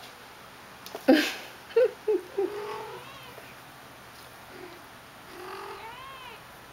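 Young Persian kittens mewing as they tussle: a loud sudden burst about a second in, then three short squeaky mews and a slightly longer one, and near the end one longer mew that rises and falls.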